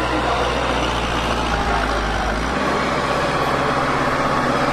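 Massey Ferguson tractor's diesel engine running steadily under load, its low note changing about two and a half seconds in.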